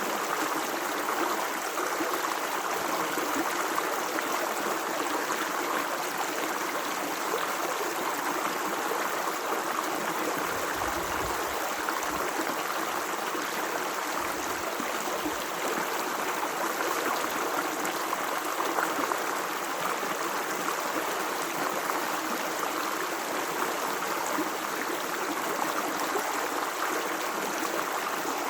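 Water running in a stream, a steady, even babble with no pauses.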